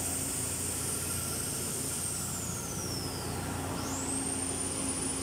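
Steady running machinery noise with a low hum. A high whine slides down in pitch about two seconds in and jumps back up near the four-second mark.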